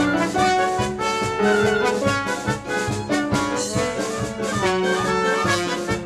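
Small ragtime orchestra playing a lively rag, with brass carrying the tune over keyboard, strings and woodwinds and a steady beat.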